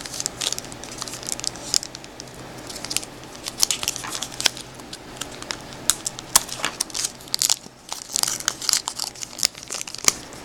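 Trading card pack wrapper being torn open and crinkled by hand: a dense, irregular run of sharp crackles and crinkles.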